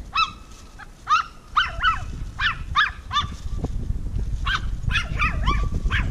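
A cat meowing insistently: about a dozen short, rising-and-falling meows in two quick runs with a pause of about a second between them. A low wind rumble on the microphone builds from about a second and a half in.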